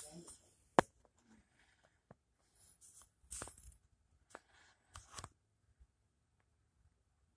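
Handling noise from a phone held close: one sharp click about a second in, then a few soft rustles and scrapes, dying away to near quiet for the last two seconds.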